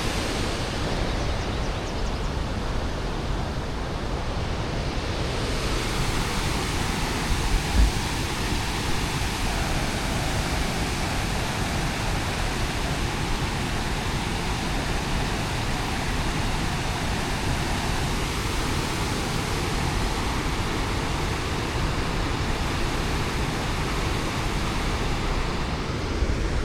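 Steady rush of a large waterfall, river water pouring over rock ledges, with one brief low bump about eight seconds in.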